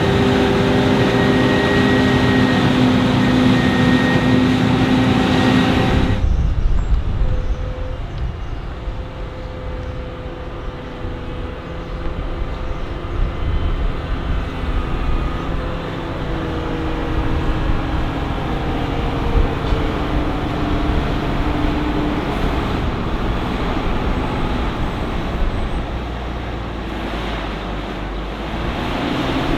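Diesel engines of heavy farm machinery running. The sound changes abruptly about six seconds in, after which the engine pitch rises and falls.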